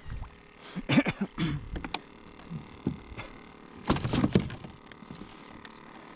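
Knocks, clatter and rattling of gear being handled on a kayak while a caught trout is put on a stringer, in two bursts: about one second in and again around four seconds in.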